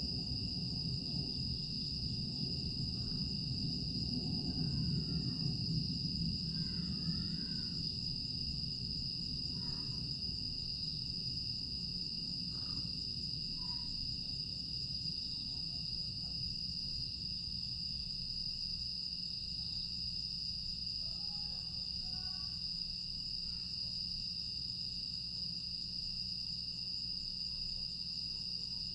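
A night chorus of grass insects (crickets) singing in a continuous high trill. A low rumble fades away over the first several seconds, and a few short chirps sound here and there.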